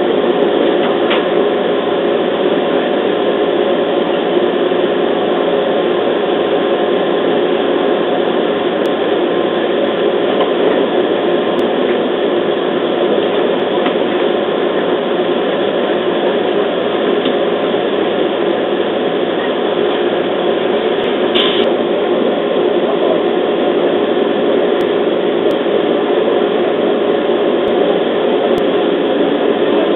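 Interior running noise of a JR East 211 series electric train rolling along a station platform as it comes in to stop: a steady rumble of wheels and motors, with one brief high squeal about two-thirds of the way through.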